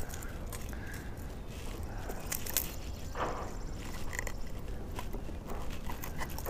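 Scattered clicks and rattles of metal fishing pliers and hooks as a lure is worked free from a northern pike's mouth.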